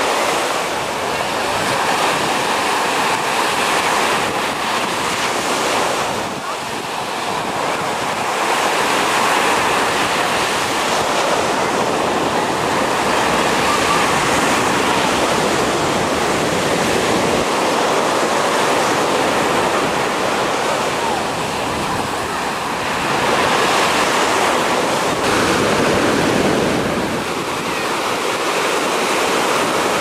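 Sea surf breaking on a sandy beach: a continuous wash of waves that swells and eases every few seconds.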